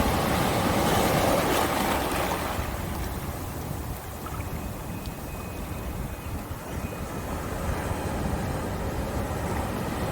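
Ocean water with wind buffeting the microphone: a steady rushing noise over a heavy low rumble, loudest in the first two or three seconds.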